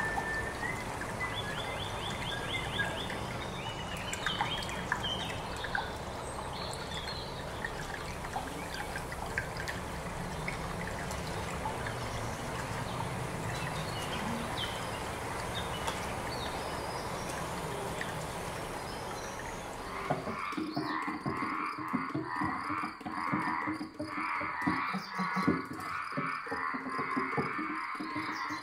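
Experimental live sound performance with objects: scattered short chirps and small glides over a steady hiss, changing about twenty seconds in to a fast rhythmic pulsing with pitched tones.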